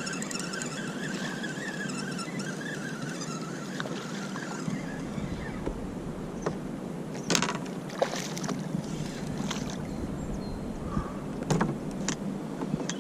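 Kayak fishing on a flowing river: steady rushing water under a wavering high whine that fades out about three seconds in, then a few sharp splashes and knocks, the loudest about seven to eight seconds in and again near eleven and a half seconds.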